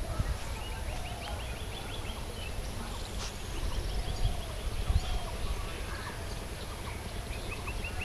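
Rural outdoor ambience: a bird gives a quick trill of rapid high chirps, once near the start and again a couple of seconds in, over a low uneven rumble of wind on the microphone, with faint lower calls in the background.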